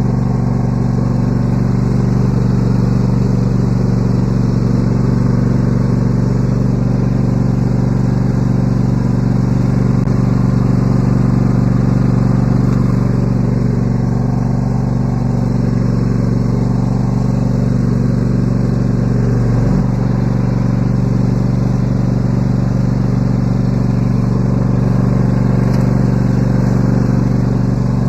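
Riding lawn mower engine running steadily at a constant idle-like speed.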